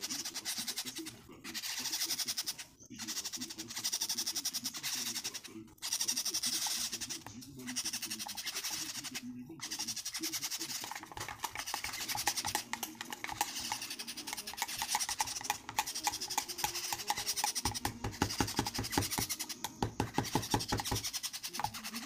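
Metal spoon stirring fast in a mug, a rapid scraping tick, mixing hand-feeding formula for baby parrots. Before the stirring starts, a rasping hiss comes in repeated bursts about a second and a half long.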